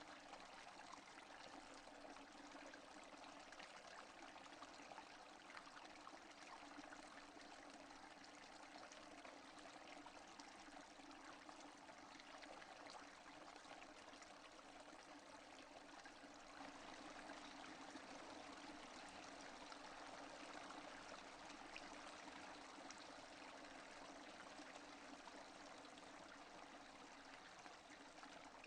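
Steady rain without thunder, faint, a dense patter of many small drops that swells slightly about halfway through.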